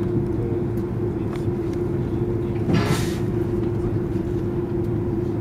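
Steady cabin rumble of an Airbus A330-200 taxiing, with a constant hum. About halfway through, a brief hiss lasts about half a second.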